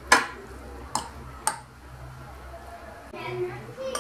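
Three sharp clicks of a utensil knocking against a glazed clay dish while steamed vermicelli is worked apart by hand, the first click the loudest. A low steady hum runs underneath.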